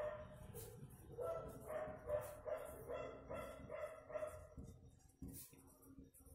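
A dog barking repeatedly in short yaps, about two or three a second, stopping a little after four seconds in. After that come faint scratches of a marker pen on paper.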